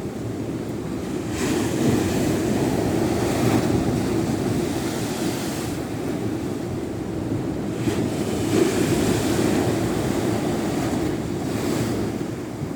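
Sea waves breaking and washing ashore, with wind on the microphone. The surf swells up twice, about a second in and again about eight seconds in.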